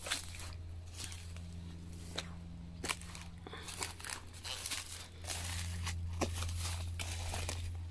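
Footsteps crunching and rustling at an irregular pace over rough cemetery ground, over a steady low hum.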